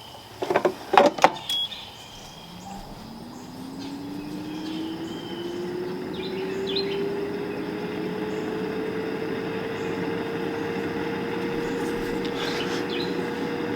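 A few clunks, then an air fryer's fan motor spinning up: a hum rising in pitch over several seconds that levels off into a steady whir with rushing air.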